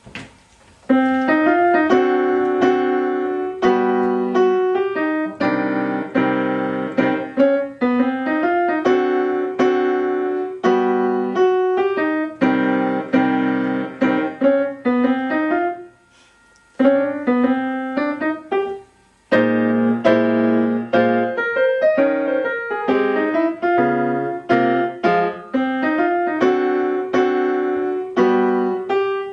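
Grand piano played solo, a piece performed at a student recital. The playing starts about a second in and breaks off briefly twice past the middle.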